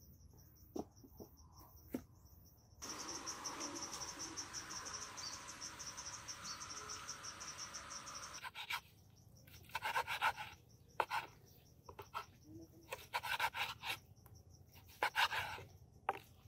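Insects trilling steadily and fast, with a louder stretch of steady hiss for several seconds in the first half. From about nine seconds in, a knife cuts grilled meat on a wooden board in short bursts of crunching and tapping strokes.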